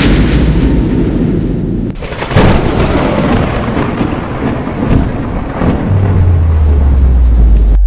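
Sound effects of an animated logo intro: a loud, dense low rumble of noise, with a sudden hit about two and a half seconds in and a deep, steady low hum over the last two seconds.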